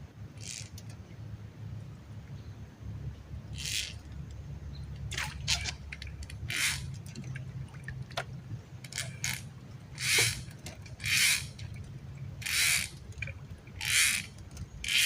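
Water splashing in short separate bursts that come about once a second near the end, over a steady low hum.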